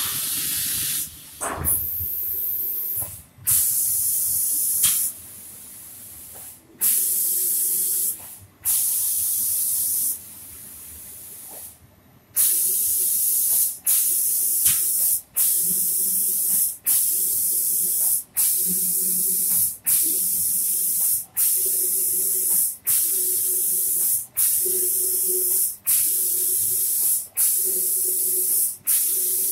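Automatic cabinet-door painting machine's spray gun hissing as it sprays the finish coat. It starts with a few longer sprays and pauses. From about halfway it settles into a regular on-off, about one burst every second and a half, cutting off briefly between passes.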